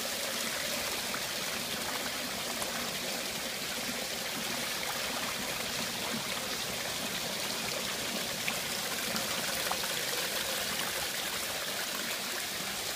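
Storm water running steadily in through the seam where two brick basement walls meet, a leak from a heavy downpour.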